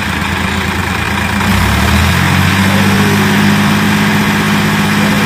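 A tractor's diesel engine running steadily, picking up speed and getting a little louder about two seconds in, as it works the hydraulics tipping the trailer to unload sand.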